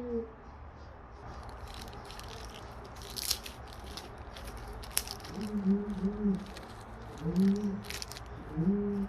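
Crinkling and rustling of a small plastic bag of screws being handled and opened, with several sharp clicks. Short, low, wavering hums come in the second half.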